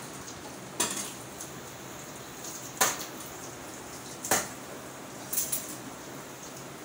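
Steel dishes clanking sharply against each other, four separate knocks spread through the washing-up, over a steady hiss.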